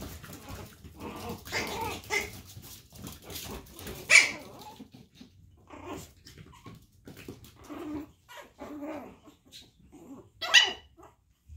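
Chihuahua puppies yipping and growling as they play together, with two sharp, loud yips, one about four seconds in and one near the end.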